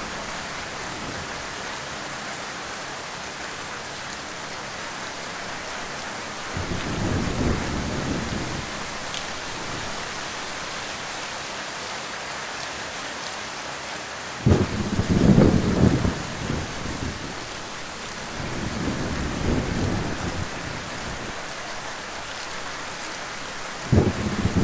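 Heavy rain falling steadily, with thunder rumbling several times. A low roll comes about seven seconds in, then a sudden, loud crack of thunder midway that rolls on for a couple of seconds. Further rumbles follow, and another sharp peal breaks in near the end.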